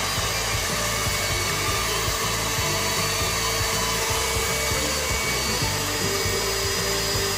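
Electric stand mixer running steadily, beating egg yolks and vanilla in its steel bowl.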